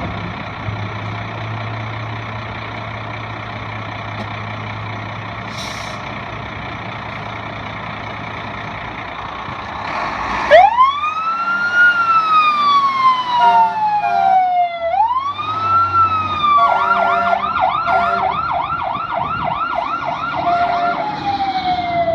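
Fire engine idling steadily, then about halfway through its siren starts with a loud burst and winds into a slow rising-and-falling wail. Near the end it switches to a fast yelp for a few seconds before going back to the wail.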